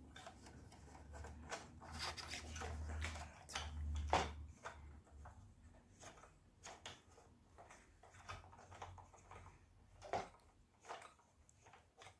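Scattered clicks, knocks and rubbing of ring-light and stand parts being handled and fitted together, with a low rumble of handling in the first few seconds and sharper knocks about four and ten seconds in.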